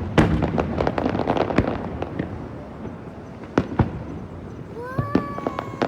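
Aerial fireworks: a loud bang, then a shower of crackling pops for about two seconds, then single sharp bangs, two close together and more near the end.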